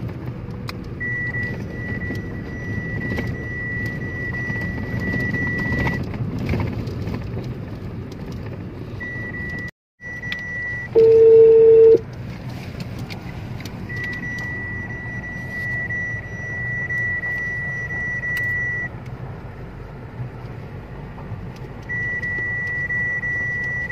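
Road and engine rumble inside a moving car, with a thin high-pitched tone that comes and goes. About eleven seconds in, a loud beep lasts about a second.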